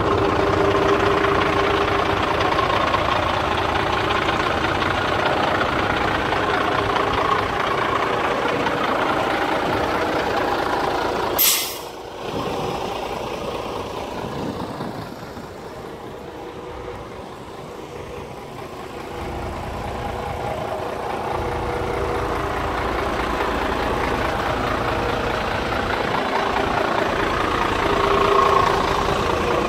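Scania P93M's diesel engine idling steadily, quieter through the middle and louder again near the end. About eleven seconds in, a short, sharp hiss of air from the truck's air system.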